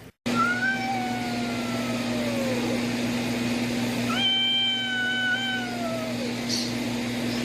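A cat giving two long, drawn-out meows, each lasting about two seconds, with the pitch sliding down at the end, over a steady low hum.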